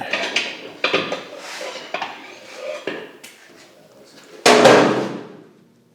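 Metal clanking and rattling of a loaded engine hoist and its chain being jostled over a concrete floor: a few separate knocks, the loudest clatter about four and a half seconds in.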